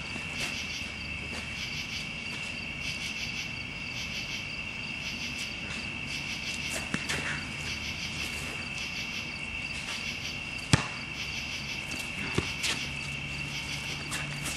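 Steady chorus of crickets chirping, with a few knocks from play on the basketball court, the loudest a single sharp one about three-quarters of the way through.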